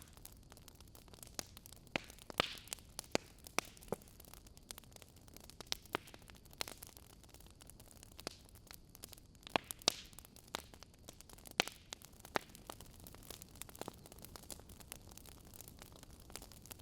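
Wood fire crackling: irregular sharp pops and snaps over a low steady hiss.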